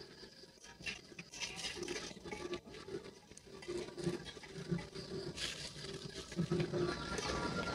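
Hot broth poured from a steel cup into a small plastic bag, then the thin plastic bag crinkling and rustling as it is twisted closed and the bagged portions are handled.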